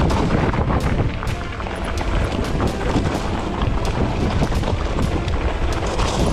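Wind buffeting the microphone of a camera riding along on a mountain e-bike descent, with the bike rattling and knocking over rough ground throughout.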